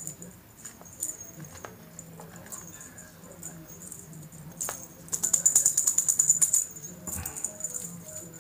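Feather wand cat toy rattling and jingling as it is flicked about and batted by a kitten, with a fast, loud run of jingles about five seconds in and scattered single clicks around it.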